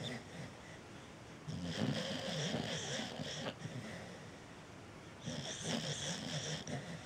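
Cocker spaniel snoring in its sleep: two snores, each lasting about two seconds, with quieter breaths between them.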